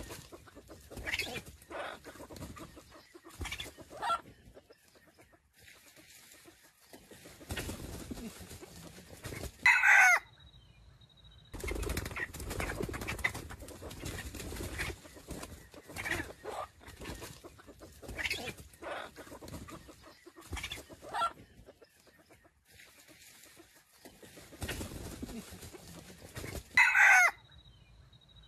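Red junglefowl roosters clucking in short calls about every second. Two loud, short crows come about ten seconds in and again near the end.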